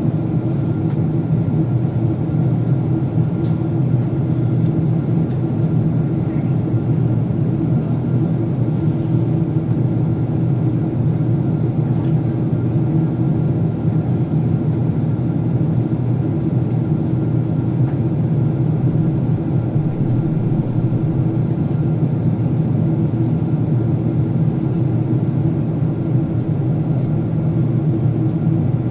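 Steady in-cabin drone of a Boeing 767-400ER airliner in descent: engine hum and airflow noise with a low rumble and a few faint steady tones, unchanging throughout.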